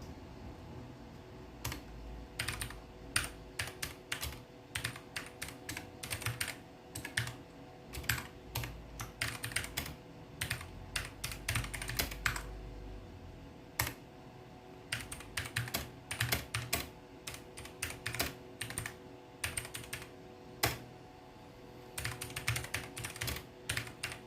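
Typing on a mechanical keyboard with blue switches: bursts of sharp, irregular key clicks with short pauses between them.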